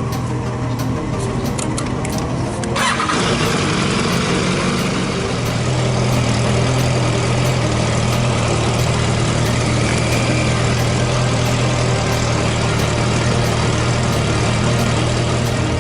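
Sport motorcycle engine running at steady revs under way, with a rushing noise that jumps up sharply about three seconds in.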